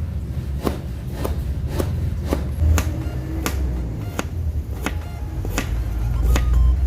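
Repeated sharp knocks of a kitchen tool striking ingredients, about two a second, over a steady low rumble.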